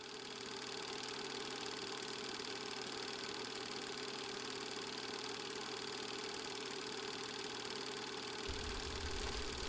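Steady mechanical whirring hum with a constant tone, typical of a record player running. About eight and a half seconds in, a low rumble joins as the stylus is lowered onto the spinning vinyl record, with a few crackles near the end.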